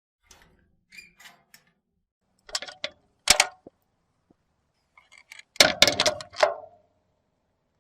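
Metal gate clanking and rattling: a few light metallic clicks, then two louder knocks, then a loud cluster of clangs with a brief ring about five and a half seconds in.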